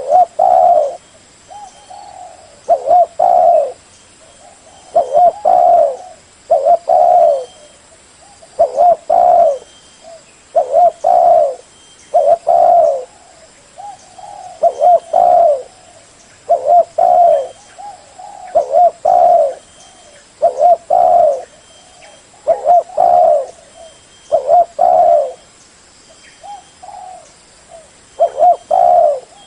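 Spotted dove cooing over and over. It gives a loud, low, rhythmic coo phrase about every two seconds, each of several short notes.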